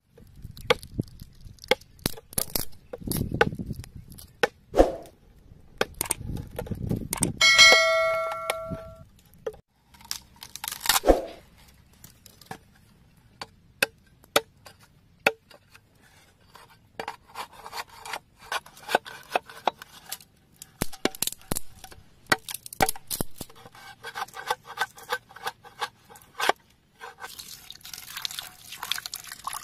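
A knife chopping and tapping at a green bamboo tube, many sharp knocks in an irregular rhythm. A short ringing tone sounds about eight seconds in.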